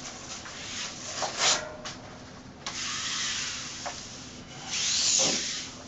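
A peel-and-stick wallpaper mural sheet rubbing and rustling against the wall while it is slid into position, with a short swish about a second in, a longer rub in the middle and a loud swish near the end.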